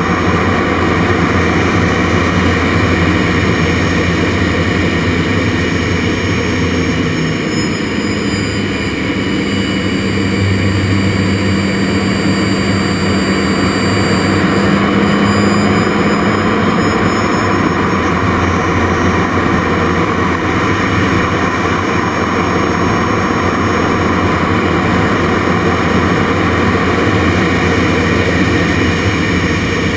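Jet Provost Mk5 heard from inside its cockpit in flight: the Viper turbojet and rushing airflow run steadily and loudly. A high whine in the engine note shifts in pitch for about ten seconds midway through a manoeuvre.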